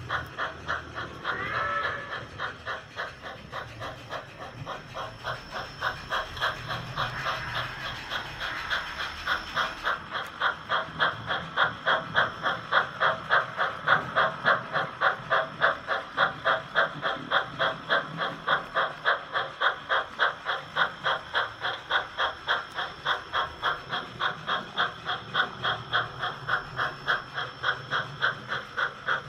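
Steam-locomotive sound from a model narrow-gauge train, chuffing in an even beat of about three chuffs a second that grows louder and steadier about ten seconds in. A brief whistle toot comes near the start.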